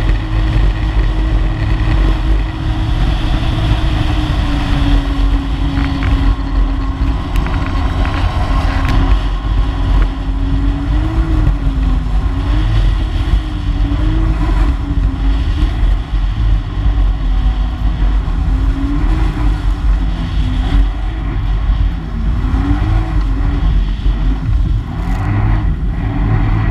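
Personal watercraft engine running at speed. Its pitch holds steady at first, then rises and falls again and again with the throttle through the bends, over heavy wind buffeting on the microphone and rushing water.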